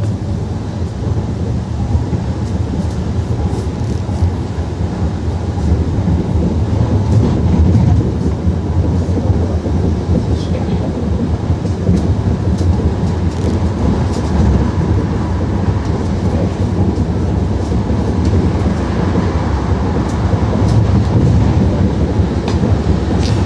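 Wuppertal Schwebebahn suspension-railway car running along its overhead rail, heard from inside the car: a steady low rumble from the steel wheels on the track, with scattered light clicks and rattles.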